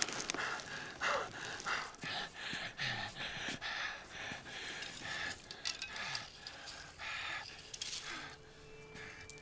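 Scuffling and heavy breathing of a fistfight between two men: a string of short, irregular knocks, rustles and pants, several a second, growing fainter near the end.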